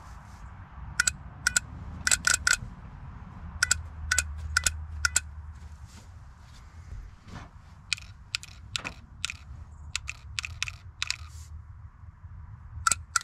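The solenoids on the top cover of a Ford 7.3 IDI diesel injection pump clicking in and out as 12 volts from jumper leads is touched on and off, about twenty sharp clicks with a brief metallic ring at irregular intervals, some in quick pairs. The solenoids are working as intended.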